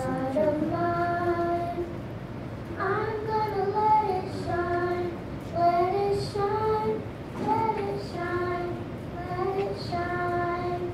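Children singing a slow melody of held notes, in short phrases with brief breaks between them.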